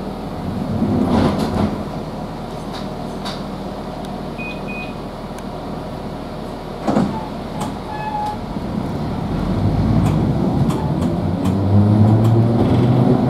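Inside a Class 483 electric train, former London Underground 1938 tube stock: a steady rumble while it stands, then a knock about seven seconds in. In the last few seconds the traction motors' whine climbs in pitch and grows louder as the train pulls away and speeds up.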